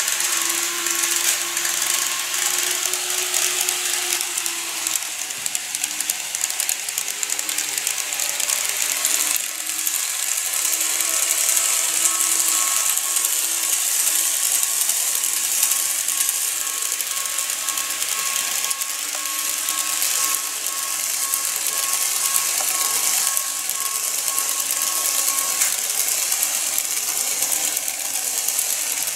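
Model E233-series electric commuter trains running on sectional track: a dense, rapid clicking rattle of wheels and running gear with a faint steady motor whine.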